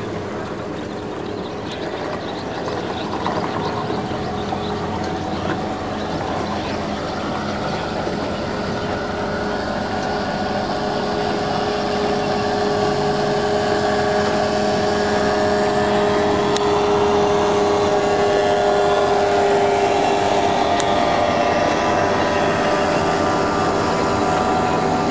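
Outboard boat motors running steadily, their engine note growing louder through the second half.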